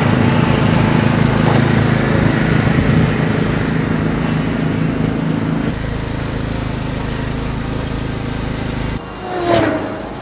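Riding lawn mower engines running steadily under throttle, the tone shifting about six seconds in. Near the end the engine sound cuts off and two short tones falling in pitch sound about a second apart.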